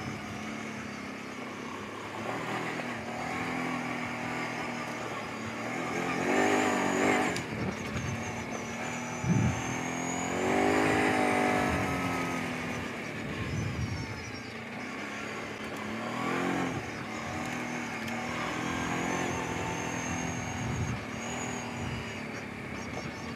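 Kawasaki Brute Force 750 ATV's V-twin engine running on a rough trail, revving up and dropping back several times as the throttle is worked, with a couple of low thumps in between.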